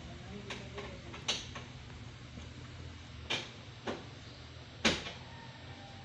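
A few short sharp knocks and clicks inside a car cabin, four in all, the loudest about five seconds in, over a steady low hum.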